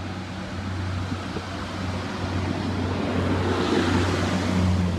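A Class 144 Pacer diesel multiple unit running past with a steady low engine drone, growing louder until about four seconds in.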